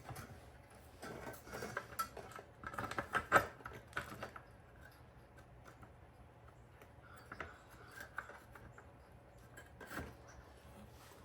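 Steel G-body bucket-seat brackets and seat tracks being handled: a run of sharp metallic clicks and clanks over the first four seconds, the loudest about three seconds in, then a few light ticks.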